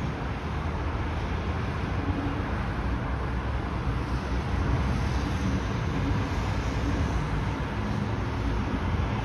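Airbus A321 jet engines at takeoff thrust: a steady, even rumble with a heavy low end and a hiss above it.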